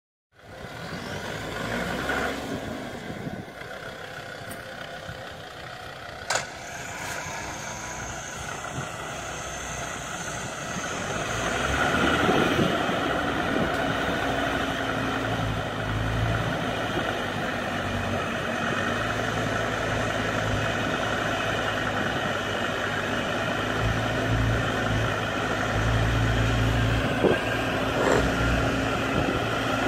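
Land Rover Defender engine running during a winch recovery through snow. A sharp click comes about six seconds in, and from about twelve seconds a steady hum joins and the running gets louder.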